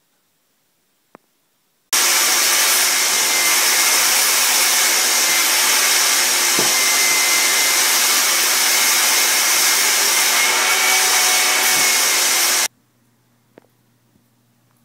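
Vacuum cleaner running steadily with a loud rushing hiss and a faint whine, its hose held over the bolted ground bar; the sound starts abruptly about two seconds in and stops abruptly near the end.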